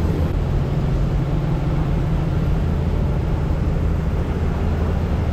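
A city bus's engine running with a steady low drone.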